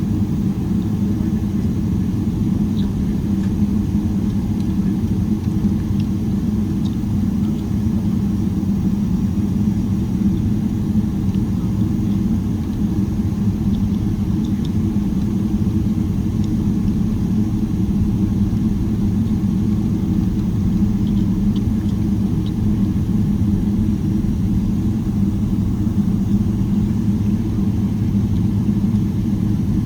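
Steady low rumble heard inside the cabin of a Boeing 777-300ER, its GE90 engines running at an even, low thrust with no build-up of power.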